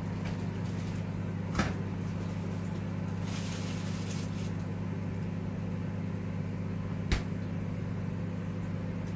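Steady electrical hum of a kitchen appliance running, with a brief hiss about three seconds in and two sharp knocks, one about a second and a half in and one about seven seconds in.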